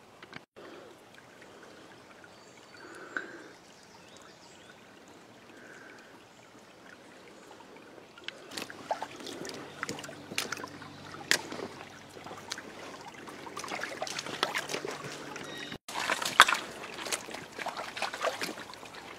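Shallow stream trickling and splashing over rocks. It is faint at first and turns louder and choppier, with many small splashes, from about eight seconds in.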